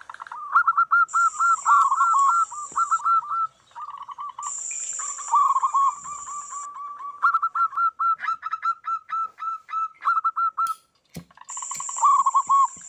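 Several zebra doves (perkutut) cooing over one another in fast runs of short, rising-and-falling trilled notes. A high steady hiss comes and goes three times alongside, and the calls break off briefly with a click about eleven seconds in.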